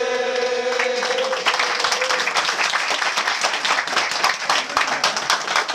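The held final note of a men's kiyari chant fades out while a crowd breaks into applause about a second in, the clapping thick and uneven; the sound cuts off abruptly.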